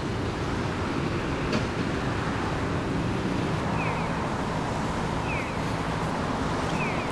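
Steady outdoor background noise of wind on the microphone and distant traffic. From about four seconds in, a short high chirp repeats about every second and a half.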